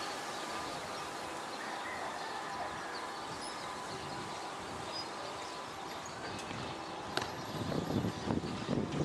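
Steady outdoor city background noise, a low even hiss with faint distant tones. Irregular low rumbling gusts come in over the last second or two.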